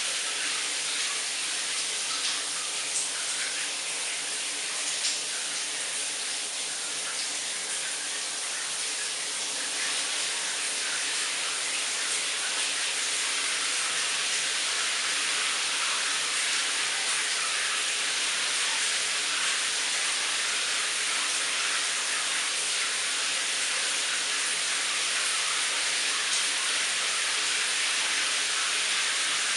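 Shower running: a steady hiss of water spray on a tiled enclosure, a little louder from about ten seconds in.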